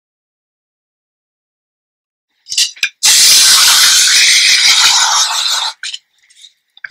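Aerosol hairspray can spraying onto hair: a couple of brief spurts, then a continuous hiss of nearly three seconds starting about three seconds in.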